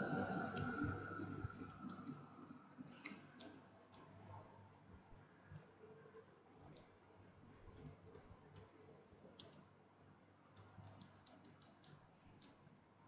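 Computer keyboard keys clicking in short bursts of typing, with pauses between. A louder steady sound fades out over the first second or two.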